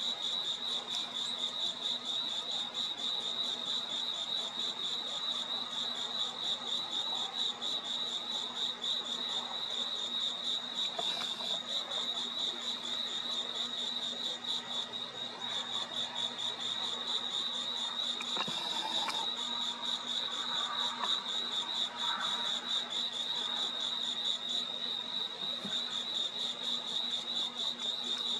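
Crickets trilling steadily at night: a continuous high, rapidly pulsing trill.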